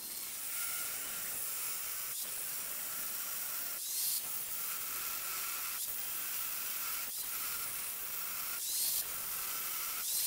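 Angle grinder with a cutoff disc cutting through the steel end of an old trailer axle: a steady, hissing grind with short gaps every second or two.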